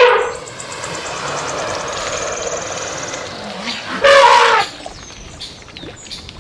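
Elephant call sound effect: a rough, noisy rumbling call lasting about three and a half seconds, then a short, loud trumpet-like blast about four seconds in.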